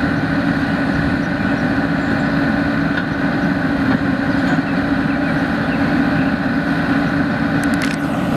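ASV PT100 forestry skid steer's diesel engine running steadily.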